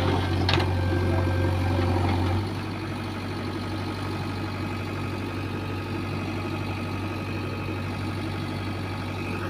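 JCB 3DX backhoe loader's diesel engine running steadily, easing to a lower, quieter idle about two and a half seconds in.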